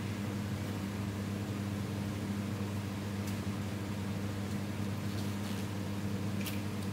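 Steady low mechanical hum of kitchen equipment, such as an extractor fan or appliance motor, running evenly, with two faint light clicks, one midway and one near the end.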